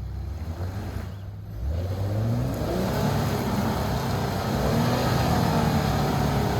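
Off-road vehicle engine revving up under heavy throttle as it attempts a steep trail climb: the pitch rises sharply about a second and a half in, then the engine holds a loud, strained run.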